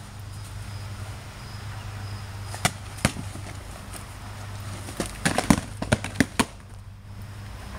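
Padded LARP swords striking each other in sparring: two single sharp hits about three seconds in, then a quick flurry of hits between about five and six and a half seconds.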